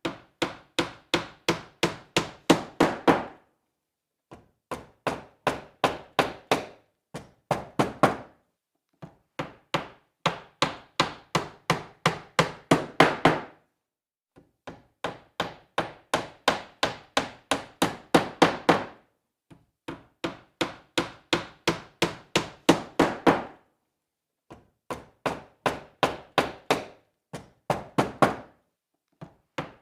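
Hammer driving a nail into wood: runs of quick blows, about four a second, each run lasting a few seconds with the blows growing louder, separated by short pauses.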